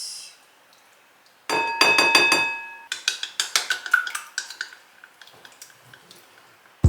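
A utensil beating egg batter in a bowl: a quick run of ringing clinks about a second and a half in, then lighter, irregular taps that fade away.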